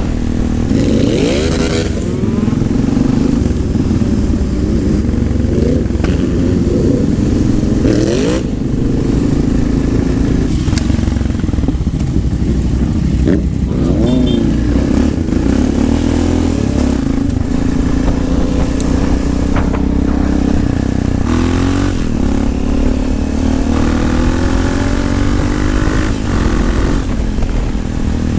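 2004 Yamaha XT660R single-cylinder engine running through a LeoVince exhaust under way, its revs climbing and dropping back several times as the bike accelerates.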